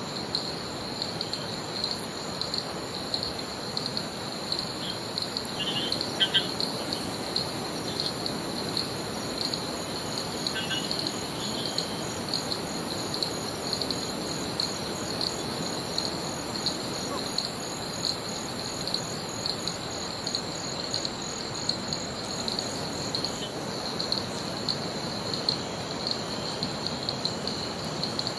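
Rainforest insects trilling steadily with a fast, even pulse, and a second, higher pulsing insect call that stops about two-thirds of the way through. A few short bird chirps come around six and eleven seconds in, over a low, steady rush of flowing water.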